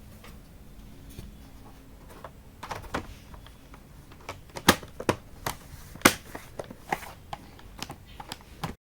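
Scattered plastic clicks and taps as a laptop's hard-drive cover and back panel are laid in place and snapped shut, a few sharper snaps standing out among lighter ones. The sound cuts off abruptly near the end.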